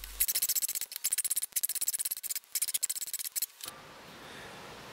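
Hand file rasping across the sawn end of a steel threaded rod to take off the sharp burr, a fast run of short strokes that stops about three and a half seconds in.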